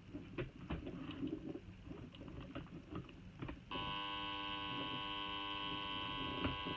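Laptop power adapter (19 V, 3.42 A) under load from the laptop, giving a steady buzzing whine that starts suddenly a little past halfway and cuts off near the end, after light clicks and rustling of its cable being handled. The noise comes only when the laptop is connected, and the output sits at 16–17 V instead of 19 V; the repairer suspects the adapter's transformer is the source.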